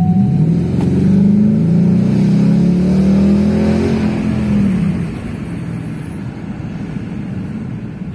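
Ford Mustang GT's 5.0-litre V8 accelerating, heard from inside the cabin. The engine note climbs for about four seconds, then falls away and settles into a steadier, quieter run.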